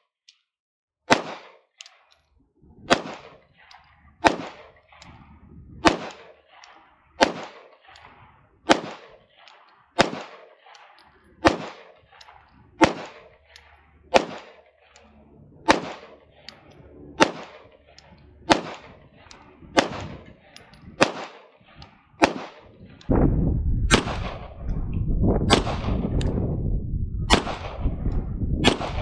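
Shadow Systems DR920 9mm pistol fired in a slow, steady string of single shots, about one every one and a half seconds. From about 23 seconds in, a steady low rumble runs under the shots.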